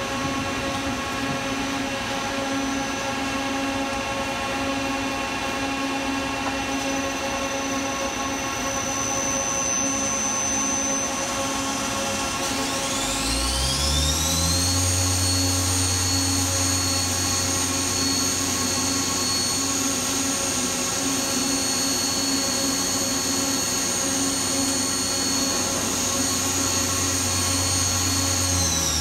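Nakamura-Tome TW-10 CNC lathe running with a steady machine hum. About halfway through, a spindle spins up with a rising whine, runs at a steady speed, and winds down near the end.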